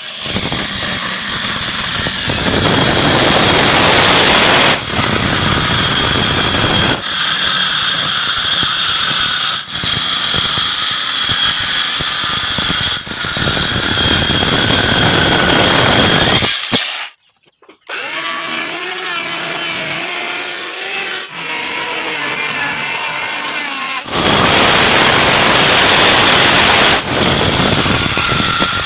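Power tools running on wood, loud and steady, in a string of short clips cut abruptly one after another with a brief gap partway through.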